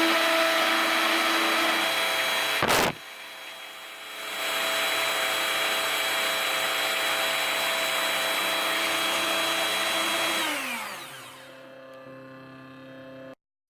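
Proxxon hobby drill spindle of a DIY CNC mill running at speed with a steady whine and hiss. It breaks off abruptly about three seconds in, comes back up to speed about a second later, and near the end winds down with falling pitch. A quieter hum is left, which stops abruptly.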